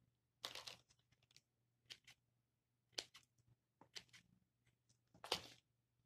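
Several short, dry crackling rustles and snips as dry moss is handled with gloved hands and trimmed with scissors; the loudest comes near the end.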